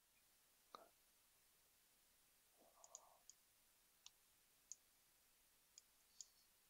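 Near silence broken by about eight faint computer mouse clicks, scattered unevenly.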